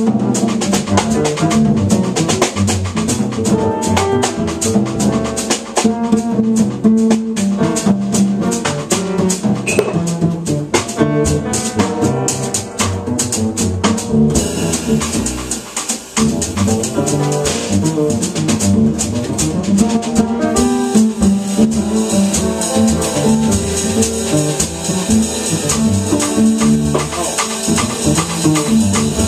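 Jazz piano trio playing live: grand piano, bass and drum kit. The drums play many sharp strokes through the first half, ease off briefly about halfway, then move to a steady cymbal wash under the piano and bass.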